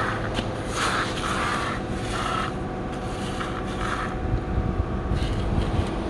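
Plastic toy dump truck and toy front loader pushed by hand through coarse sand, scraping in several short strokes, with a low rumble building about two-thirds of the way through.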